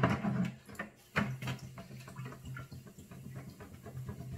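Wet sanding of a plastic headlight lens with fine 3000-grit sandpaper: irregular wet rubbing strokes with small clicks over a steady low hum, after a loud knock right at the start.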